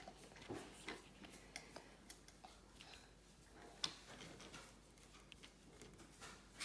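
Near silence with faint, scattered light clicks and taps, one a little louder about four seconds in.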